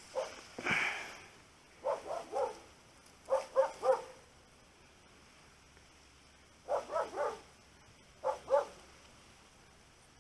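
An animal calling in short groups of two or three quick calls, with a few seconds' pause between groups; one longer call about a second in.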